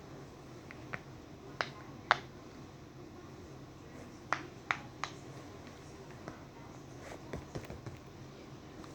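Bubbles of a star-shaped pop-it fidget toy being pressed in, popping with sharp single clicks. There are a few scattered pops in the first two seconds, a quick group of three about halfway, then fainter ones near the end.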